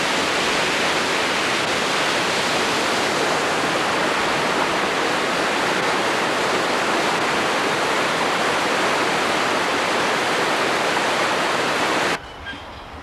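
Loud, steady rushing noise, like running water or a hiss, that cuts off suddenly near the end.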